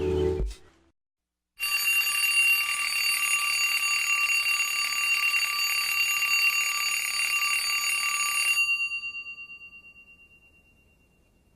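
Alarm clock bell ringing steadily for about seven seconds, then stopping abruptly, with the bell's tone dying away over about two seconds.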